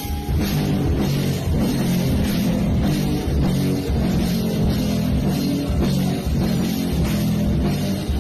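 A metal band playing loud, with distorted electric guitar and drum kit, kicking in just after the start.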